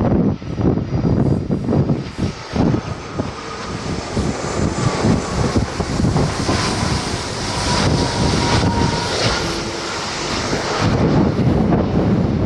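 Jet engines of an arriving Airbus A330 airliner passing on approach, a steady roar whose whine slowly drops in pitch. The high hiss swells and fades over several seconds, with wind buffeting the microphone throughout.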